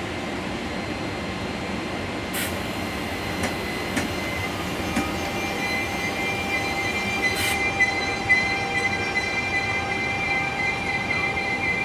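Passenger train pulling away from the platform, its coaches rolling slowly past with a steady rumble and a few sharp knocks. A high-pitched whine builds up about halfway through as the train gathers speed.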